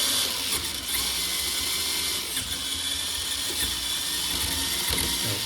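Electric motor and geared drivetrain of a 1:10 scale RC rock crawler running with the wheels spinning freely on a stand, a steady whirring gear noise with a ratchety edge, while the dig feature is engaged.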